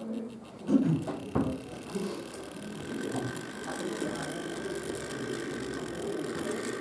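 Background chatter of many voices, with two sharp knocks about a second in and a faint steady mechanical whir underneath.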